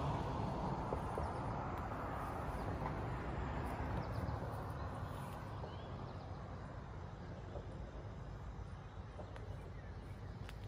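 Outdoor ambience: a low wind rumble on the microphone under a broad rushing noise that fades away over the first few seconds, with a few faint high chirps around the middle.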